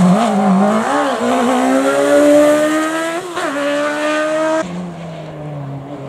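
Race car engine wavering briefly out of a hairpin, then accelerating hard with its pitch climbing steadily, a quick upshift about three seconds in, and a further climb. A little after four and a half seconds the sound cuts abruptly to a lower, quieter engine note of another car.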